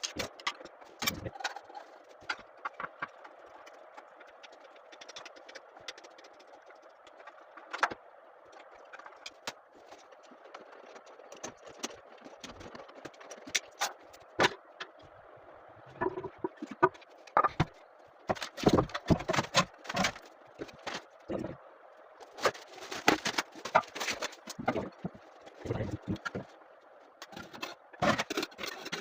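Irregular clicks, knocks and clatter of hands and tools working on a toilet's fittings as it is taken apart, sparse at first and busier in the second half.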